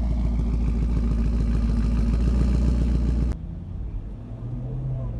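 Chevrolet Camaro SS's 6.2-litre V8 idling steadily, loud at the quad exhaust tips. About three seconds in it cuts to a much quieter low engine hum from inside the car as it drives.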